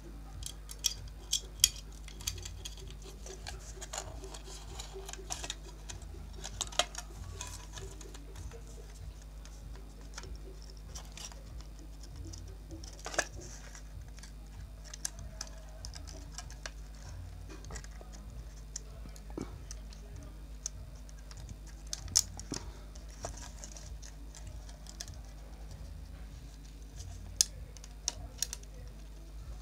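Scattered small clicks and taps of fingers handling a disassembled smartphone's plastic frame and flex cable, several in quick succession at the start and then only now and then, over a steady low hum.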